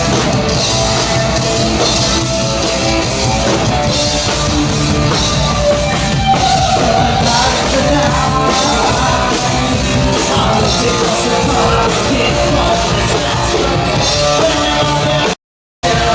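Punk rock band playing live at full volume: drums, bass and guitar with vocals. The sound cuts out abruptly for a split second near the end.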